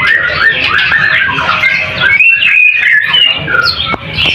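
Several caged white-rumped shamas (murai batu) singing at once: a loud, dense tangle of whistled phrases, sliding notes and chirps, with one long high whistle about two seconds in.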